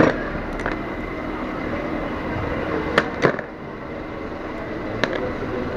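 A few sharp metal clicks and taps as a screwdriver and the disassembled carburetor of a Yamaha Mio Sporty scooter are handled, two of them close together about three seconds in, over a steady rushing background noise.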